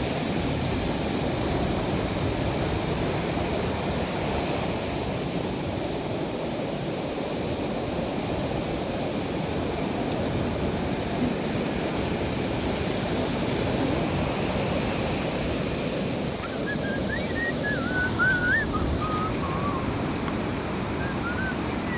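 Sea waves breaking and washing on a beach, a steady surf wash. Near the end a few faint, high warbling notes sound over it.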